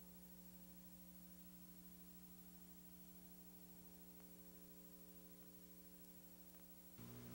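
Near silence: a faint, steady electrical hum. Near the end the hum changes and something a little louder begins.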